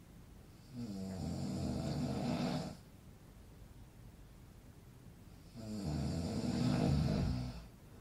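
A man snoring: two long, low, rattling snores, the first about a second in and the second about five and a half seconds in.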